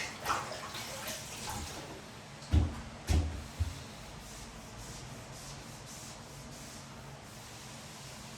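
Light rustling and scraping, then two heavy thumps about half a second apart and a lighter knock just after, followed by faint soft strokes.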